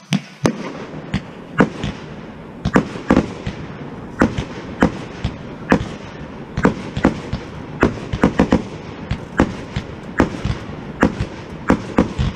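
Fireworks going off around the neighbourhood: many sharp bangs and cracks at uneven intervals, often two or three a second, over a steady background of more distant bangs.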